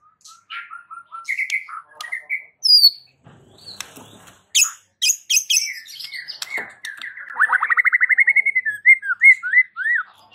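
White-rumped shama (murai batu) singing: a varied run of clear whistled notes and quick high slides, with a fast trill of rapidly repeated notes about two thirds of the way in, ending in a few looping whistles.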